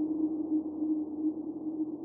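Background electronic music: one held synth tone, steady and mid-pitched, with a soft airy hiss around it.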